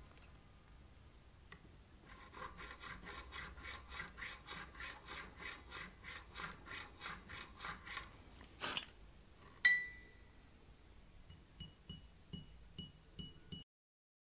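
New strings being worked onto a Stratocaster neck: a rhythmic rubbing of about two strokes a second, then a sharp metallic click with a brief ring, followed by a run of light ticks. The audio then cuts off suddenly.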